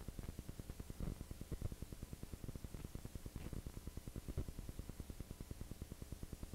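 A low, fast, even rattle or flutter of about ten pulses a second, unchanging throughout.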